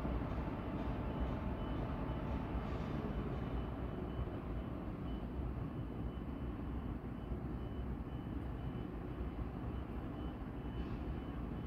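Steady low rumble of vehicle traffic, with a faint high-pitched beep repeating about twice a second throughout.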